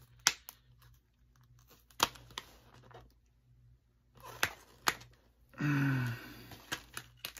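Plastic DVD box-set case and disc trays being handled: sharp plastic clicks and snaps, a handful spread out at uneven intervals, closer together near the end. A short wordless vocal sound breaks in about two thirds through.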